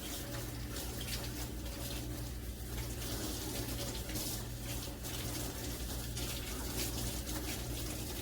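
Water running steadily, like a tap, with a low steady hum underneath.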